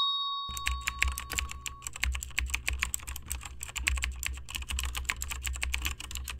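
A chime rings and fades over the first two seconds. From about half a second in, rapid irregular clicking runs on over a low hum.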